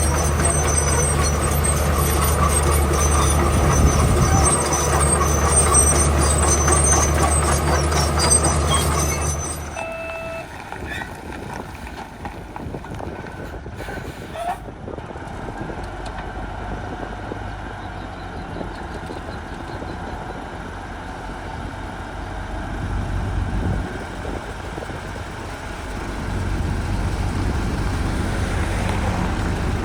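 Heavy diesel construction machinery running: a loud, steady engine for about the first ten seconds, then it suddenly drops to a quieter rumble with a few short tones just after, and grows louder again near the end.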